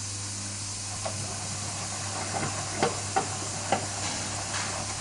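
Hotpoint Aquarius WMF520P washing machine running before its final spin: a steady low hum with hiss and a few light knocks, about one, three and nearly four seconds in.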